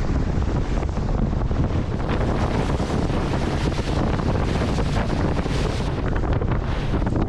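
Wind buffeting the microphone over the rush of water past a boat running at speed.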